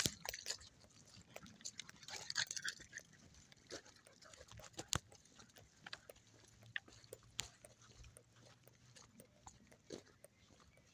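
Footsteps on a gravel forest track, an irregular scatter of sharp crunches and clicks, with rottweilers close by making quiet animal sounds.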